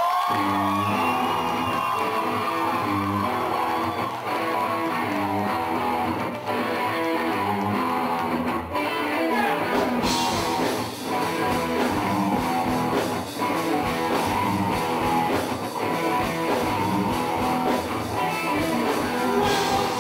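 Rock band music led by electric guitar, a repeating guitar figure over bass, with no singing; it turns brighter and fuller about halfway through.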